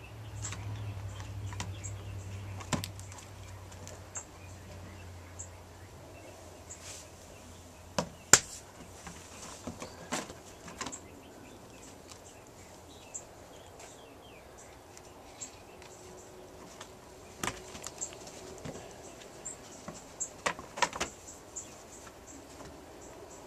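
Kitten playing with a string: scattered sharp knocks and light scrabbling clicks as she pounces and bats at it, the loudest knock about eight seconds in and a quick cluster near the end. A low hum runs under the first few seconds.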